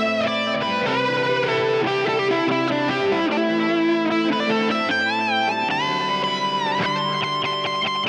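Stratocaster-style electric guitar playing a solo lead line, with string bends and vibrato in the second half.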